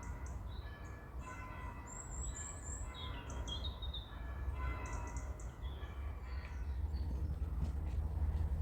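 Small birds chirping and singing in short phrases, over a steady low rumble.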